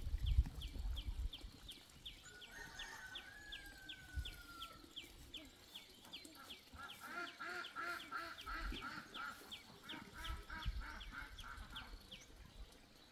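Chickens calling: a drawn-out falling call about two seconds in, then a run of rapid repeated clucks from about six seconds to near the end. Underneath, a steady high chirp repeats about three times a second, with a few low thumps at the start.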